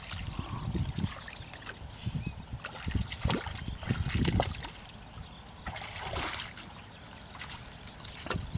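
Footsteps sloshing and squelching through shallow muddy water, irregular steps a second or so apart.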